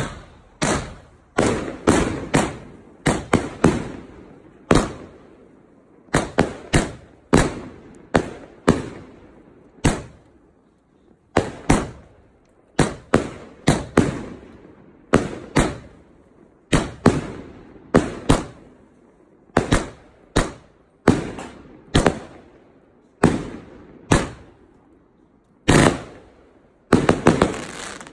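A 25-shot 'Attitude' hitter firework cake firing its shells one after another: a long run of sharp bangs, each trailing off, often two or three in quick succession with short irregular gaps between. Near the end a rapid cluster of shots fires close together.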